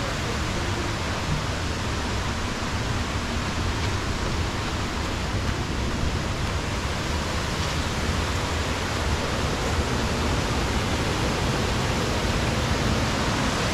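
Waterfall and creek cascades rushing steadily, an even wash of water noise.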